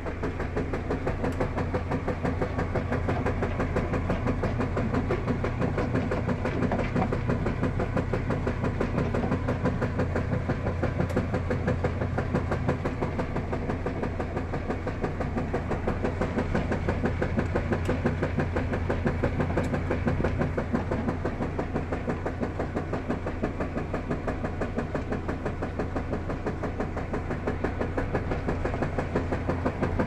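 Top-loading washing machine agitating a load in soapy water: a steady motor hum under a rhythmic churning and sloshing.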